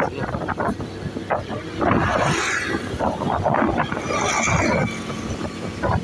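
Road traffic from riding along a street among motorbikes: engines running and tyre noise, swelling as other bikes pass.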